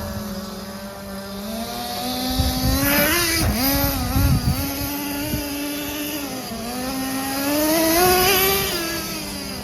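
Small nitro RC engine in a Smartech Magic Wheel, running on a freshly fitted used Mach 15 sleeve and piston, revving up and back down. The pitch climbs sharply about three seconds in, then rises again to its highest and loudest point near the end before dropping.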